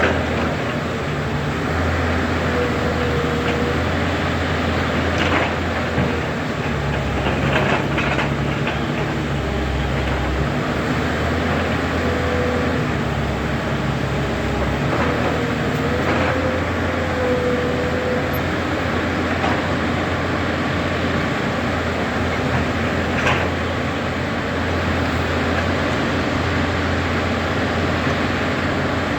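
Excavator's diesel engine running steadily with a deep drone, with a few brief higher whines and occasional knocks.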